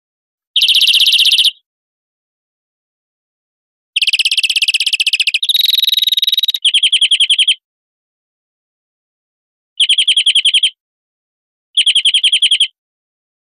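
European greenfinch song: four bursts of fast trills, each about a second long except the second, which runs about three and a half seconds through several joined phrases. Clean silence falls between the bursts.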